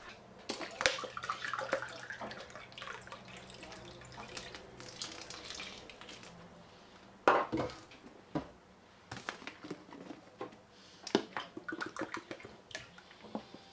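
Thick tomato sauce boiling in a frying pan, bubbles plopping, while liquid is poured into it from a glass. Scattered pops and splashes, the loudest about seven seconds in.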